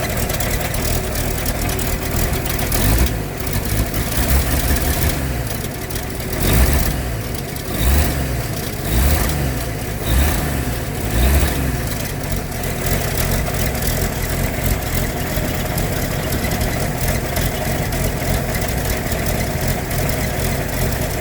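1951 Chevrolet Fleetline Deluxe's freshly rebuilt inline-six running on a cold start after six months of sitting, warming up and running a little rough. The engine surges briefly several times between about 3 and 11 seconds in, then settles to a steady run.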